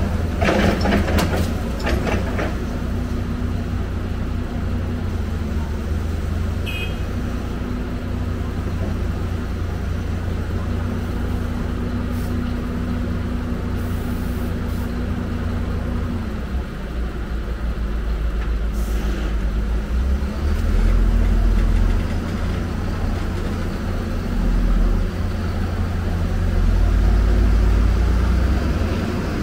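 Heavy diesel engine of working earthmoving machinery running steadily, its low drone swelling under load three times in the last ten seconds. A few sharp metal clanks come in the first two seconds, with the odd one later.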